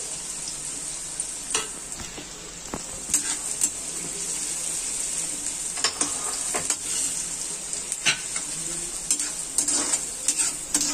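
Sliced onions sizzling in hot oil in a metal kadhai, stirred with a metal ladle that knocks and scrapes against the pan several times.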